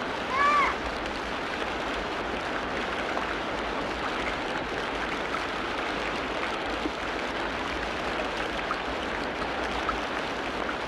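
Steady rushing noise, with a short arched chirp-like tone about half a second in.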